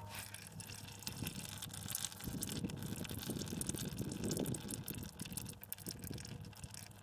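Used engine oil running in a thin stream from a truck's big-block engine oil pan into a metal drain pan: a steady trickle with a dense patter of small splashes, the tail end of the oil drain.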